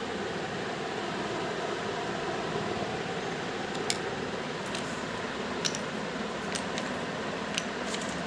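Steady whir of an electric fan, with a few short clicks in the second half.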